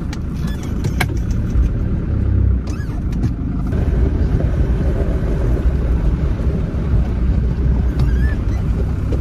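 Cabin noise of a Land Rover Defender being driven: a steady low engine and road rumble, with a few light rattles in the first second or so.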